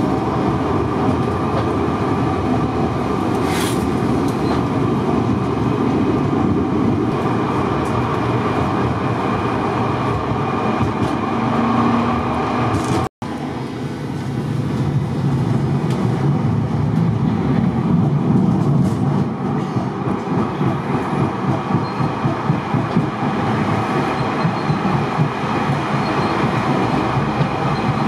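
Ex-Hannover Düwag TW6000 tram running along street track, heard from inside the driver's cab: steady wheel-on-rail rolling noise with clickety-clack over the rail joints. There is a momentary break about 13 seconds in.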